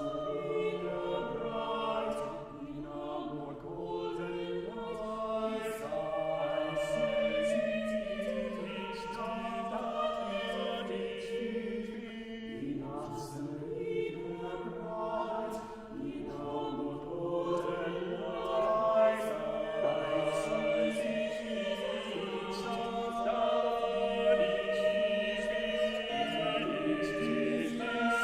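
Church choir singing a choral piece, several voice parts holding overlapping sustained chords that shift step by step, with the crisp consonants of sung words.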